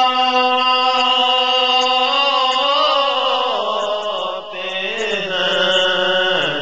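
A man singing a naat in long held notes, with wavering ornamental turns in pitch; a short break about four and a half seconds in before the next phrase.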